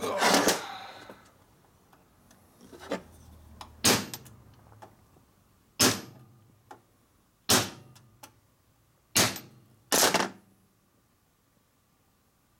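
Hammer striking a steel punch, about six sharp metallic taps a second or two apart with a few lighter ones between. The blows tighten a loose piece on a Linkert carburetor's float assembly.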